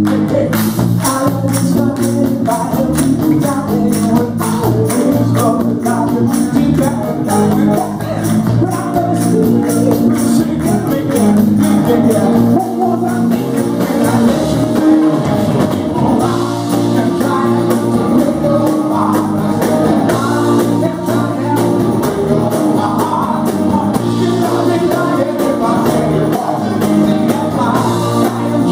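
A live soul band plays: a male lead singer over electric guitar, bass guitar, drum kit and congas. Fast, busy high percussion runs through the first half.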